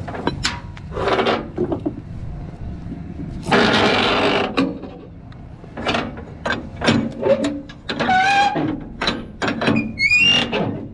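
Trailer strap winch being cranked tight with a steel winch bar: the ratchet pawl clicks in short runs, with a rasp and creaks and squeaks from the winch and strap as the load is cinched down.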